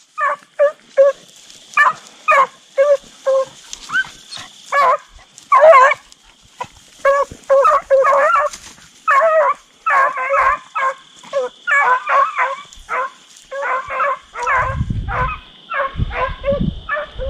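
Deer-hunting dogs barking over and over in short, quick yelps, often two or three a second: hounds giving tongue as they work a deer's track. A low rumbling comes in near the end.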